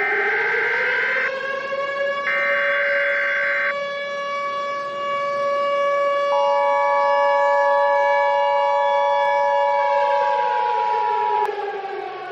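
Civil defense siren winding up, holding a steady wail, then winding down near the end. It is overlaid by two short screeching bursts of EAS digital header data in the first few seconds. Then the EAS two-tone attention signal sounds steadily from about six seconds in until shortly before the end.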